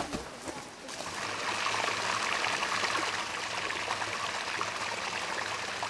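Steady rush of running water, swelling about a second in and then holding even, with a faint low hum underneath.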